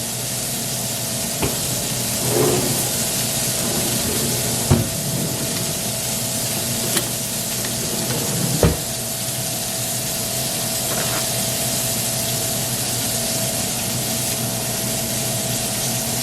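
Beef burger patties searing in piping-hot skillets, a steady sizzle as a crust forms on the underside. Two light knocks, about 5 and 9 seconds in.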